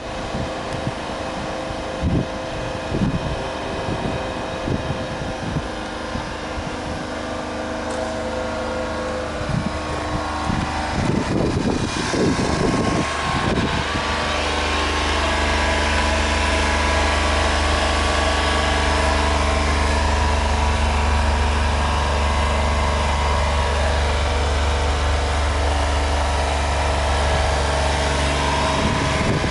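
Honda Acty HA4 kei truck's small three-cylinder engine idling steadily, with a few low knocks and rumbles of handling on the microphone. About halfway through, the idle drone becomes steadier and louder, heard from inside the cab.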